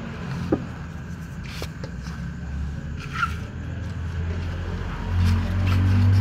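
A steady low motor drone, like a vehicle engine running, swelling louder about five seconds in. A few light clicks and scrapes of cats eating from plastic trays sound over it.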